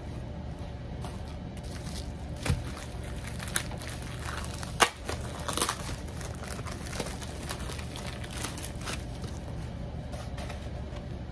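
Plastic sleeve and diamond-painting canvas crinkling and rustling as they are handled and rolled up, with a few sharper crackles.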